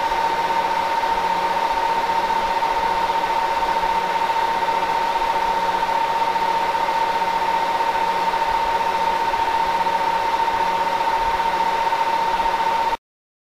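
A steady, high electronic tone over a hiss, with a faint low hum coming and going underneath. It starts abruptly and cuts off suddenly near the end.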